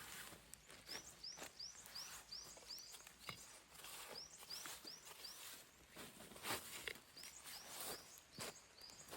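A small bird repeating short, high chirps, about three a second, in three runs, faint, with scattered soft crunches or knocks in between.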